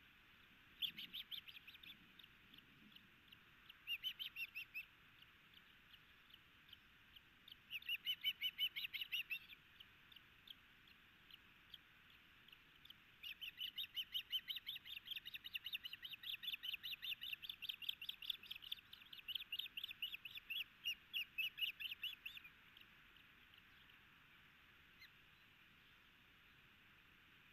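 Osprey calling at the nest: runs of sharp, high, whistled chirps. A few short runs come in the first ten seconds, then one long run of about four chirps a second lasts some nine seconds and stops abruptly.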